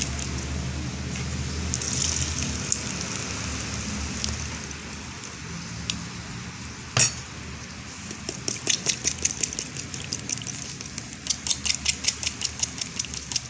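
Thick blended chile sauce poured from a plastic blender jar over raw chicken pieces in a plastic bowl, over a steady low hum. From about two-thirds of the way in comes a quick run of clicks and taps, several a second, as the jar is worked over the bowl.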